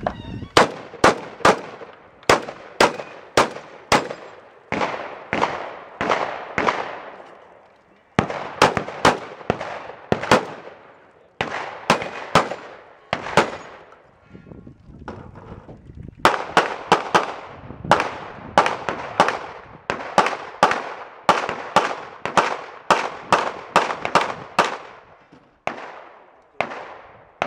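Gunfire from a competitor shooting a timed three-gun stage: dozens of shots in fast strings broken by short pauses, each shot trailing off in an echo.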